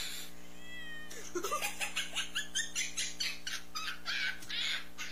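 Cartoon cat meowing from a meme's soundtrack: a short high call about a second in, then a quick run of short noisy sounds until near the end.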